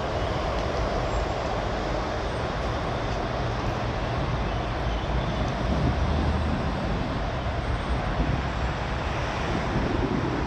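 Wind blowing across the microphone: a steady low rumble with rushing noise above it and no break.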